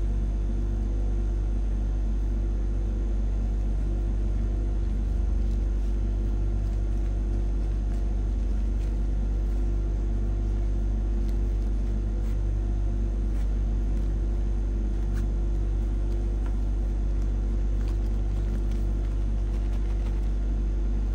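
Steady low electrical hum with a rumble, unchanging throughout, with a few faint crinkles of thin plastic film being handled.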